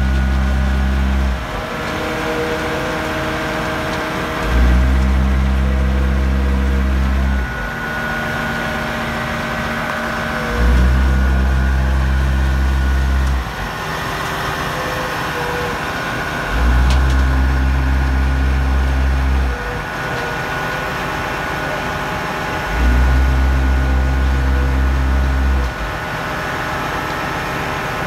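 On-site concrete batching and mixing machinery running steadily, with a deep hum that cuts in for about three seconds roughly every six seconds as the plant cycles while loading a mixer truck.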